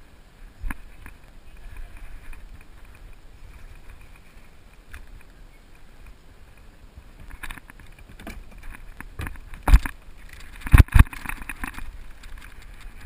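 Knocks and bumps on a kayak's hull as gear is handled aboard, a few light clicks at first, then several sharp knocks in the last few seconds, the loudest a close pair near the end, followed by a brief rustle.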